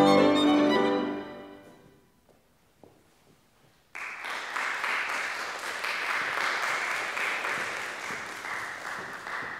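The final chord of violin and grand piano rings out and dies away over about two seconds. After about two seconds of silence, audience applause starts and carries on steadily, fading slightly near the end.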